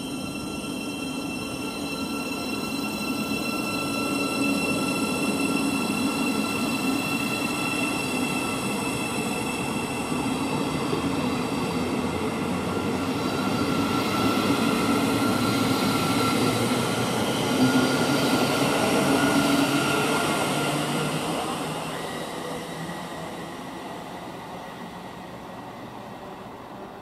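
Thameslink Class 700 Desiro City electric multiple unit running past the platform: steady wheel-on-rail rumble with several steady high whining tones. It grows louder, then fades away after about 21 seconds as the last coach passes.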